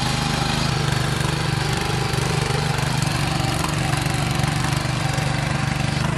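RURIS 731K ACC power tiller engine running steadily while the tiller pulls a single plow through the soil.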